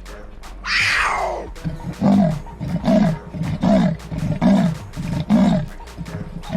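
An animal calling: one loud falling cry about a second in, then a run of about six deep grunts, evenly spaced under a second apart.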